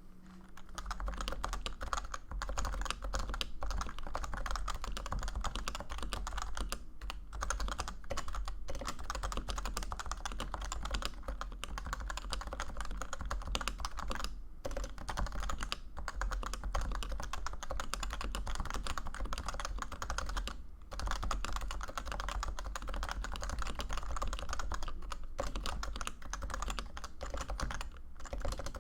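Fast continuous typing on a Leopold FC980C keyboard with Topre electrostatic capacitive switches: a dense run of soft keystrokes, broken by a few brief pauses. A steady low hum lies underneath.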